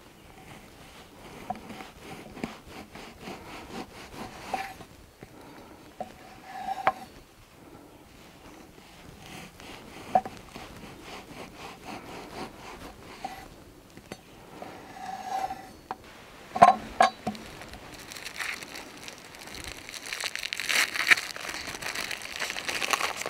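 Knife sawing through a crusty wholewheat sourdough loaf on a wooden board in repeated back-and-forth strokes, with a few sharper knocks. In the last few seconds there is louder crinkling of a paper wrapping being opened.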